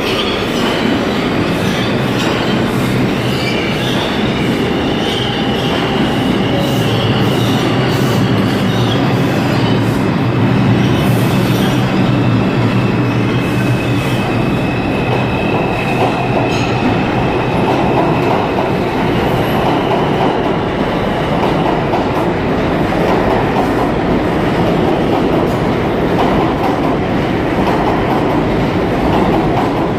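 New York City subway train pulling out of the station and running past the platform, with a steady rumble of wheels on rail and a high wheel squeal at times, twice for several seconds in the first half.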